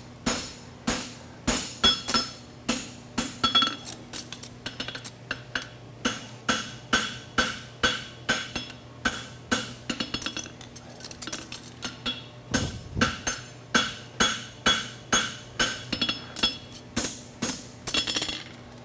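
Farrier's hammer striking a hot steel horseshoe on an anvil, with steady ringing blows about two a second and a run of lighter, quicker taps partway through. The blows are flattening out a pucker along the ground surface of the shoe.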